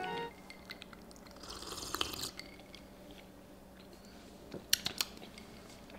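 A person taking a sip from a glass and swallowing, with a soft slurp and a few small clicks.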